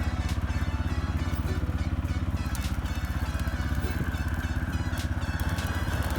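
An engine running at a steady speed with a fast, even putter and deep low rumble.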